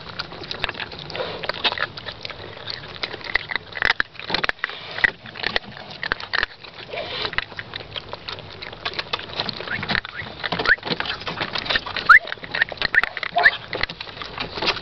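Several young puppies eating together from one bowl: rapid, irregular smacking and chewing of food, with a few short high squeaks near the end.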